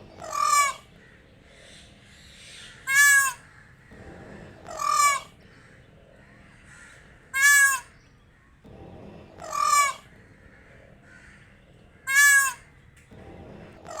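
Peacock calling: six loud, ringing, nasal calls about two to two and a half seconds apart, alternating between two slightly different forms.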